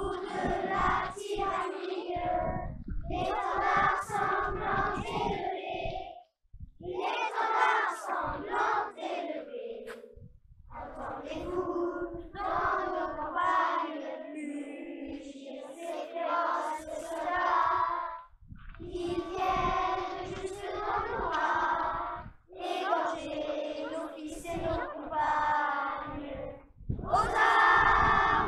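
A large group of children singing together without accompaniment, in long sung phrases broken by short pauses for breath.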